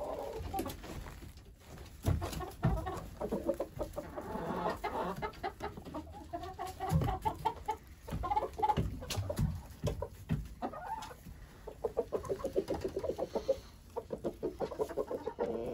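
A flock of hens and roosters clucking steadily, many short repeated calls overlapping, with a few sharp knocks about two, seven and nine seconds in.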